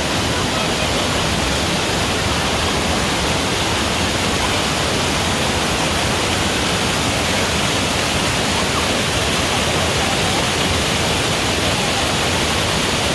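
Waterfall, water rushing down in a steady, unbroken roar.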